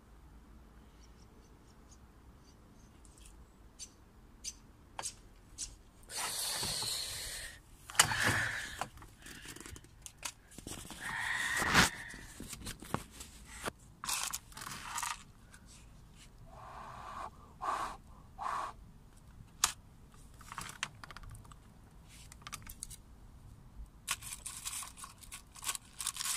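A plastic plant pot handled with a gloved hand: scattered clicks and several short scraping and rustling bursts.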